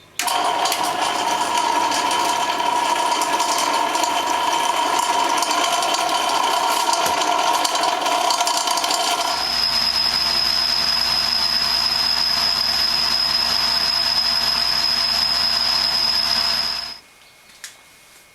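Power machine tools cutting solid steel round stock. First comes a squealing cut. About nine seconds in the sound changes abruptly to a steady machining noise with a high whine and a low hum, and it stops suddenly near the end.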